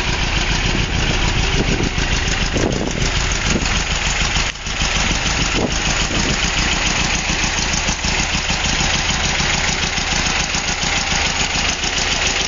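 Volkswagen Type 2 split-window bus's air-cooled flat-four engine idling steadily, with one brief dip about four and a half seconds in.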